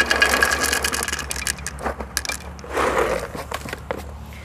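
Expanded clay pebbles poured from a plastic pot into a terracotta pot: a dense rattling clatter that thins to scattered clicks, with a second short pour about three seconds in.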